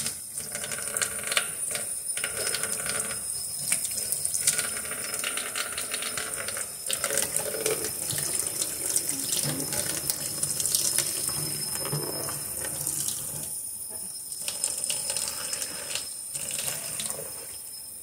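Water running from a tap into a sink, splashing, with small knocks and clinks throughout. The flow drops away briefly twice near the end.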